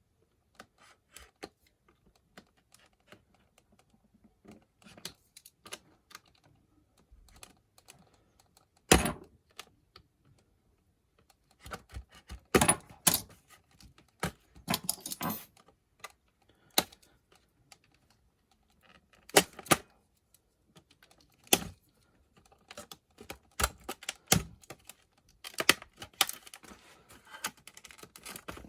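Brittle plastic blister packaging being cut and cracked open: a scattered series of sharp clicks and snaps, irregular and in short clusters, the loudest snap about nine seconds in.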